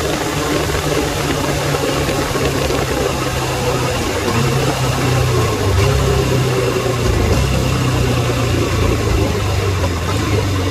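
Suzuki Bandit 600's inline-four engine running, its note shifting a few times, with wind rushing over the microphone.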